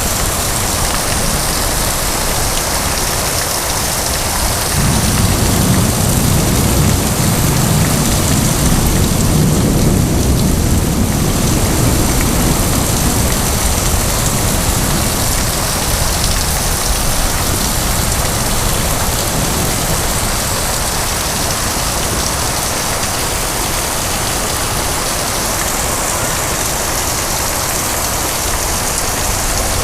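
Heavy rain pouring steadily during a thunderstorm. A low rumble of thunder swells from about five seconds in and fades away a few seconds later.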